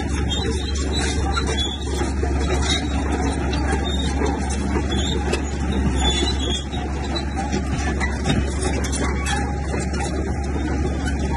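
Diesel engine of heavy earthmoving machinery running steadily, with a constant deep low hum underneath.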